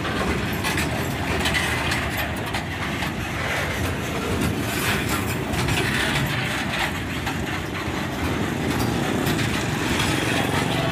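Freight train of covered hopper wagons rolling past close by: a steady rumble of steel wheels on the rails, with occasional knocks.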